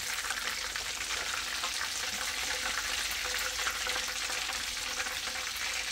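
Chicken drumsticks frying in hot oil: a steady, dense sizzle full of fine crackles.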